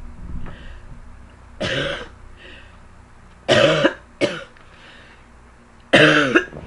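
A girl coughing: about four separate coughs a second or two apart, each dropping in pitch, with breaths between them and the later coughs louder.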